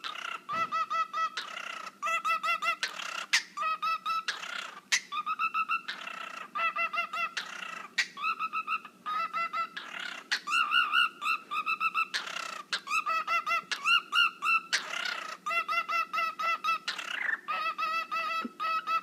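Cockatiel calling in quick runs of short, repeated chirping notes, broken every second or two by a short, harsher scratchy call.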